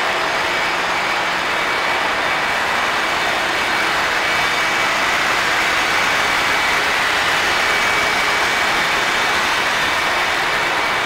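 Loud, steady machinery noise of a container ship's engine room: a dense, unbroken din with a few faint steady tones in it.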